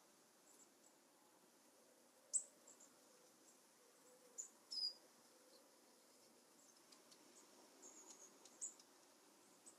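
Long-tailed tits giving their high-pitched twittering contact calls, short thin notes scattered irregularly, the loudest about two and a half seconds in and a few more just before five seconds and near the end.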